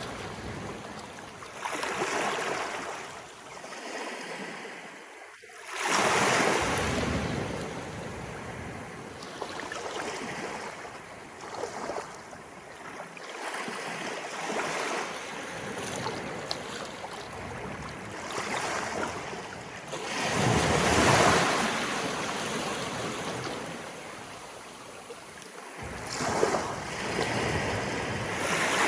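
Small waves of an incoming tide rolling in and breaking in surges every few seconds, with the strongest about six seconds in, around twenty seconds in, and near the end. Water washes and splashes between them, with some wind on the microphone.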